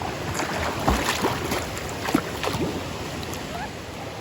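Stream water splashing and sloshing irregularly as someone moves through it, over a steady rush of flowing water.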